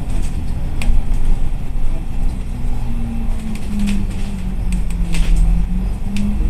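A bus engine running, heard from inside the passenger cabin: a deep rumble and an engine hum that wavers in pitch as the bus moves slowly. A few short rattles or clicks sound over it.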